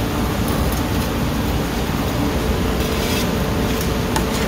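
Steady machine running noise with a faint hum that steps up in pitch about two seconds in, along with light rubbing and a few faint clicks.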